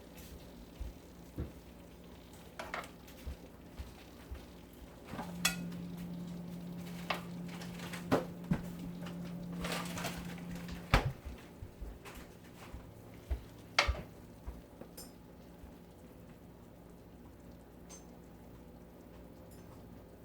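Kitchen clatter of dishes and utensils: scattered clinks and knocks. A steady low hum runs through the middle for about six seconds, then stops.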